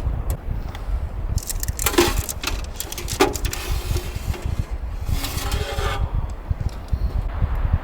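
Strong wind buffeting the microphone in a steady low rumble, with a few knocks and clicks and two brief rustling bursts about two and five seconds in.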